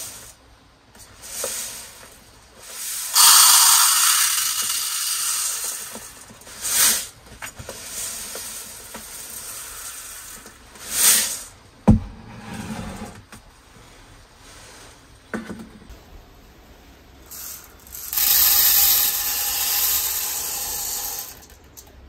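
Uncooked rice grains pouring in several rushes, first from a plastic rice container into a plastic measuring cup, then from the cup into a mess tin near the end. One sharp knock about halfway through, as something is set down on the wooden table.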